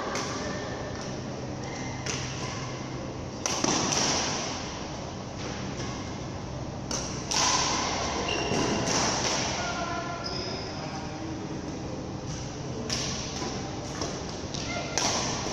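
Badminton rackets striking a shuttlecock, a sharp hit every few seconds, with thuds of players' footsteps on the court, echoing in a large sports hall over a steady hum.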